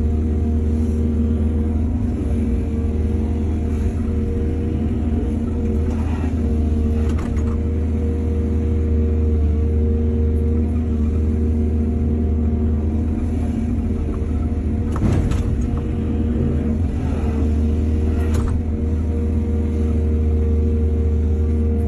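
Excavator's diesel engine running steadily, with a few short metallic clanks and scrapes, the loudest about fifteen seconds in.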